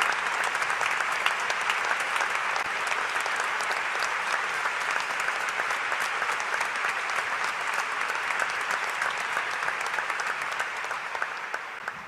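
A large crowd applauding steadily, the clapping fading away near the end.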